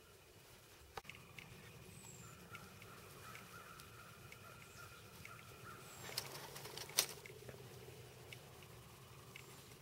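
Quiet winter woodland with a low steady hiss and a few sharp clicks, the loudest about seven seconds in. A faint steady whine runs through the middle, and there are a few faint, short, high chirps.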